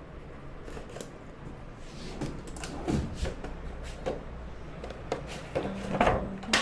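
Cardboard headphone packaging being handled and opened: scattered knocks, scrapes and rustles, loudest about three seconds in and again near the end.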